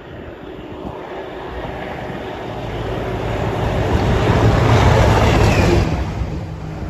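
Train approaching and passing through a station at speed without stopping: a rising rush of rail noise, loudest about five seconds in, then falling away quickly as it goes by.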